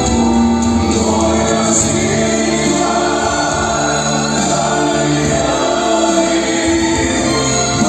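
Song with several voices singing together in harmony over instrumental backing.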